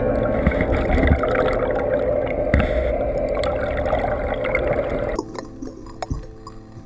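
Soundtrack music with held tones over a watery hiss, then about five seconds in the sound drops abruptly to a quieter, muffled underwater recording of bubbling water with scattered clicks.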